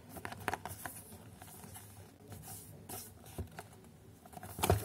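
Fingers handling and turning a small cardboard box, with light taps and rustles of the cardboard and a somewhat louder tap near the end.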